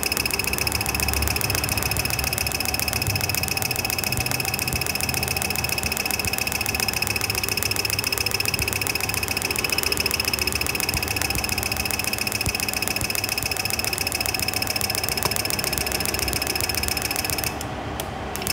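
Car engine idling steadily, with a fast, even mechanical ticking over it; the sound drops off briefly near the end.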